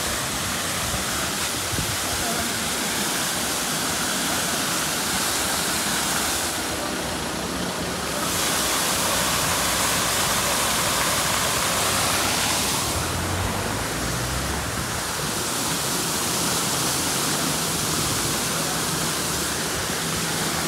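Fountain with a tall central jet and a ring of arcing jets falling into its stone basin: a steady rush of splashing water.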